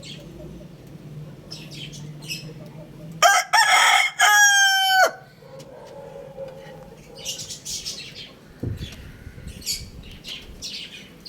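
A rooster crows once, loudly, about three seconds in: a rough opening followed by a long held note that drops off at the end, the whole crow lasting under two seconds. Short faint calls of other birds come before and after it.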